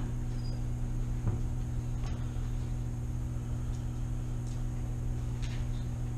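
Steady low electrical or ventilation hum, with a few faint clicks and paper rustles as sheets are handled under a document camera.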